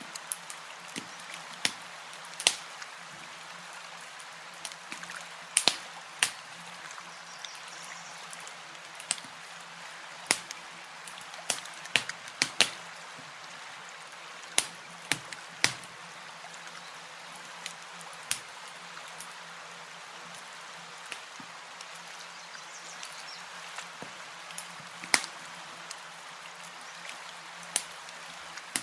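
Campfire crackling: sharp, irregular pops about once a second over a steady hiss.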